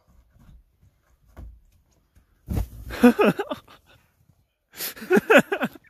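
A person drops into a deep pile of soft snow with a dull thump about two and a half seconds in. Two bouts of short vocal cries with sliding pitch follow.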